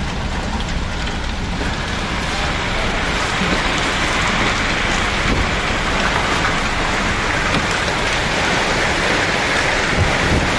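Heavy rain mixed with hail pouring down, a steady hiss that grows louder about two seconds in.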